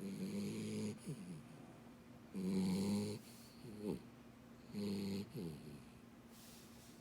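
Dachshund-beagle mix puppy snoring loudly: three snores about two and a half seconds apart, each followed by a short falling whistle.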